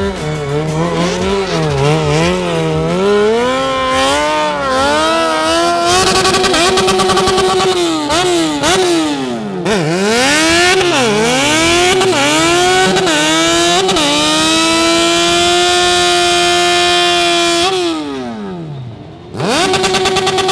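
A sport bike's engine is revved hard during a burnout, its pitch rising and falling again and again while the rear tyre spins. Then it is held high and steady for a few seconds before the revs drop away. Just before the end a different steady sound cuts in abruptly.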